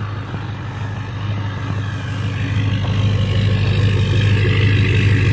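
Duramax V8 turbo-diesel pickup idling shortly after a cold start, a steady low drone muffled by snow lying on the truck. It gets gradually louder across the few seconds.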